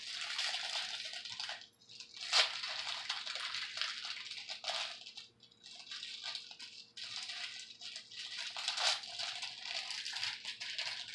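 A small clear plastic packet crinkling and crackling as it is handled and opened by hand, with short pauses between stretches and one sharper crackle a couple of seconds in.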